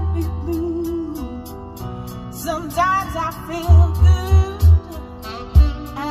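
Pop song with a woman singing over guitar, played through an upgraded car audio system of Infinity Kappa component speakers and an Alpine S800 subwoofer box, heard inside the cabin. Deep bass notes hit hard at the start and again in a run of pulses past the middle.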